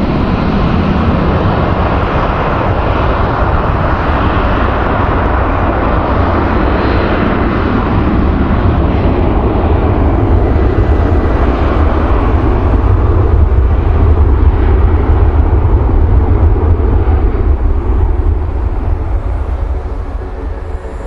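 Jet airliner's engines rumbling as it passes, building to a peak about two thirds of the way through and fading near the end.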